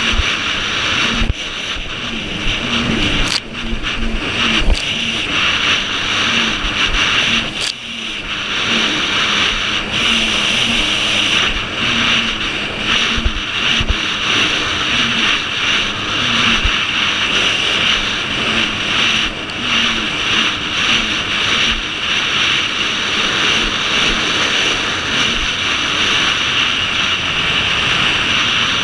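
Yamaha jet ski engine running at speed, with a steady hiss of wind and water spray rushing past. A few brief thumps and drops in the sound in the first several seconds as the hull slaps over the chop.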